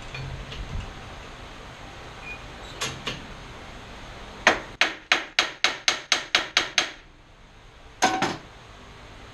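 Metal hammer blows on a brass drift punch, driving a part out of a cast-iron band saw: two light taps, then a quick run of about a dozen strikes at roughly five a second, and two more close blows near the end.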